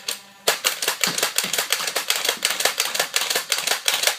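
Battery-powered Nerf Stockade dart blaster firing in a rapid clattering string of shots, several a second, starting about half a second in.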